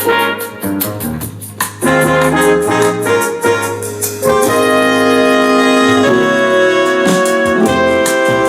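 Jazz track with trumpet and piano over a steady beat, played as a sound test through an Anker Soundcore portable Bluetooth speaker. Long held horn notes come in about halfway through.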